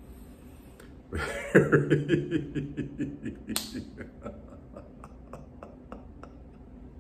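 A man chuckling, starting about a second in and trailing off into quieter, breathy laughter.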